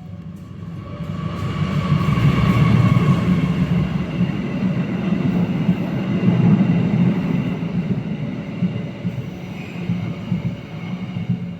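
A train passes over a level crossing with a heavy low rumble. It builds over the first two seconds, stays loud for several seconds, then slowly eases off.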